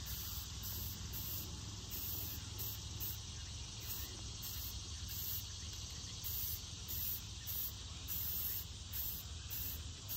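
Aerosol spray paint can hissing in short, repeated bursts.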